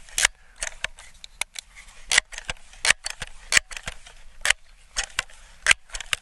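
Crosman 1322 .22 multi-pump pneumatic pistol being pumped by its forearm pump lever, a sharp clack with each stroke, about one stroke a second. The pistol is being charged to ten pumps, its highest power setting in this test.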